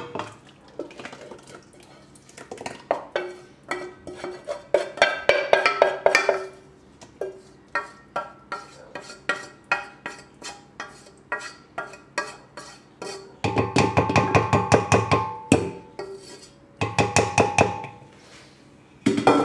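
A spoon scraping and knocking against a pan as sauce is scraped out into a cooking pot: quick clinks and scrapes, several a second, with a dense spell of ringing metal strikes about two-thirds of the way through and another shortly before the end.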